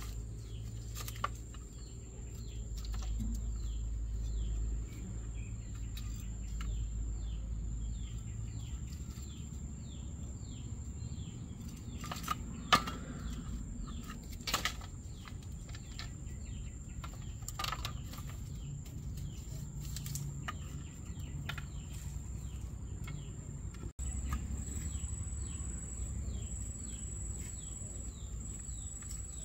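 Outdoor ambience of a steady high insect drone and many small bird chirps, with a few sharp taps from the bamboo rod being handled, the loudest near the middle.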